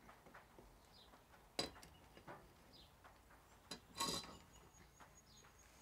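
A length of white PVC pipe being handled and set down against the timber and gravel, giving three sharp knocks, the loudest about four seconds in with a brief hollow ring. Faint bird chirps repeat behind.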